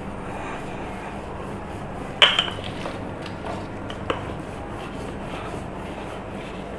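Wooden rolling pin rolling back and forth over yeast donut dough on a board, a soft steady rubbing, with a sharp knock about two seconds in and a lighter one about four seconds in.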